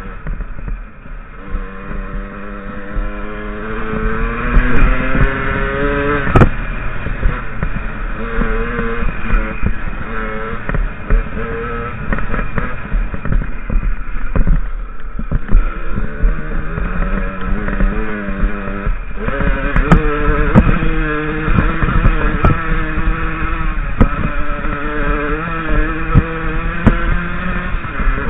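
A 50cc enduro motorcycle engine revving up and easing off as the bike rides a rough trail, its pitch climbing steadily in the first few seconds and again later on. Clatter and sharp knocks come from the bike jolting over rocks, with a loud single knock about six seconds in.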